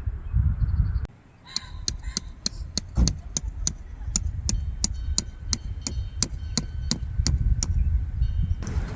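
A run of evenly spaced sharp metallic strikes, about three a second for around six seconds, each with a brief ring, like a peg being hammered. Wind rumbles on the microphone in the first second and again at the very end.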